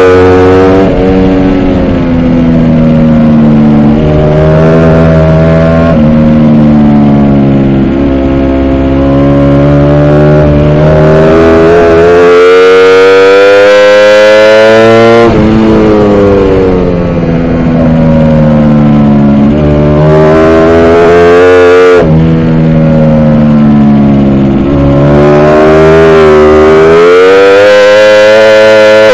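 Ducati Panigale V4 R's V4 engine at full race pace, heard from the bike itself: the note climbs under throttle, falls away into corners and builds again. It drops sharply in pitch twice, about halfway and about three-quarters through, at upshifts.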